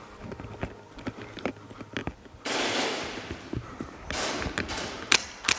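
Airsoft guns firing: scattered snaps and clicks, a short dense burst about two and a half seconds in and another about four seconds in, then two sharp, loud cracks near the end.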